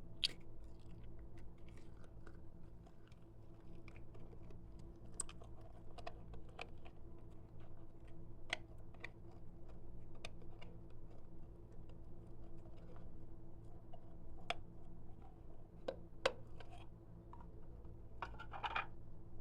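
Clear slime being squished and kneaded by hand, making irregular sticky clicks and pops, with a denser crackling run near the end, over a steady low hum.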